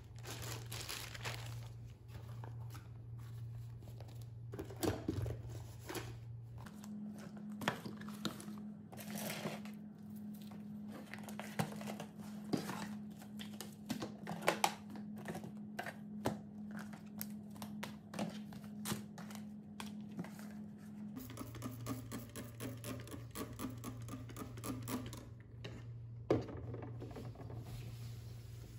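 Plastic shopping bags crinkling and rustling, with papers and small objects knocking and shuffling as a desk drawer is emptied by hand. Throughout there is a steady low hum, which steps up in pitch about a quarter of the way in and drops back down near the end.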